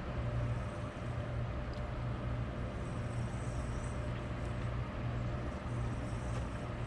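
The drag of a light spinning reel slips as a hooked fish pulls line, a sign of a fairly big fish. It is heard faintly over a steady low rumble.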